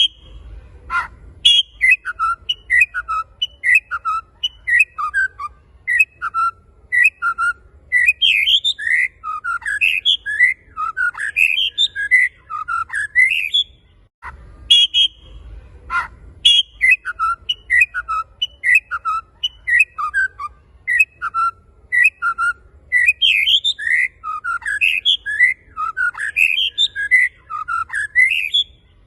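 White-rumped shama (murai batu) singing vigorously: quick strings of clear whistled notes sliding up and down, mixed with sharp high chips. The same song passage of about 14 seconds plays twice over, a looped recording.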